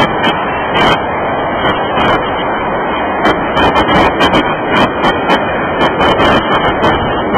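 Freight train boxcars rolling past close by: a steady loud rumble of steel wheels on the rails, with frequent irregular sharp clicks and clacks from the wheels.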